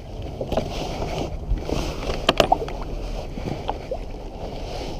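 Water sloshing and lapping against a kayak hull while someone leans over the side and reaches into the river, with small splashes and drips. A couple of sharp knocks a little past two seconds in.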